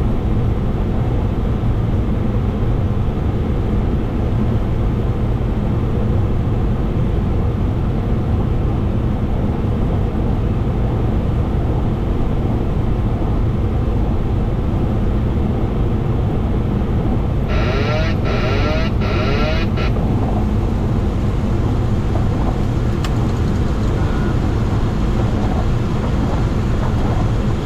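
Steady, loud flight-deck noise of a Boeing 737-800 on approach, made by airflow and engines. Near the middle there is a short electronic tone in three pulses, lasting about two seconds.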